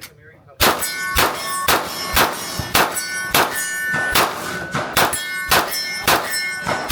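Steel plate targets ringing under a rapid string of shots, about two to three hits a second. Each hit leaves a clear metallic ring, starting about half a second in.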